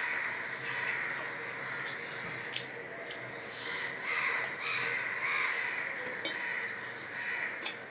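Close-up mouth sounds of eating rice and fried hilsa fish by hand: small wet clicks and smacks of chewing throughout. Crows caw several times in the background.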